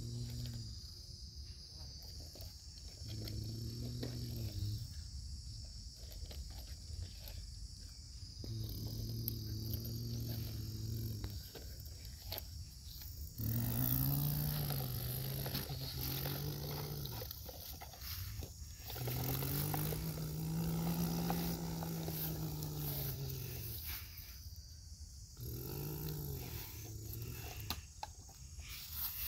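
A person's low voice imitating a truck engine: a string of drawn-out growling hums, each one to four seconds long, some rising and falling in pitch, with small knocks as the toy trucks are handled.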